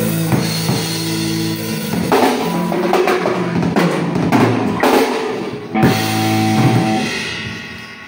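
Live rock band: electric guitar through an amp with a drum kit. Sustained guitar notes give way to a run of drum hits in the middle, then one last hit with a guitar chord left ringing and fading away near the end.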